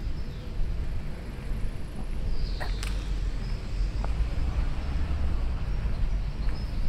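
Quiet outdoor city street ambience: a steady low rumble with a few high, thin chirps and occasional light clicks.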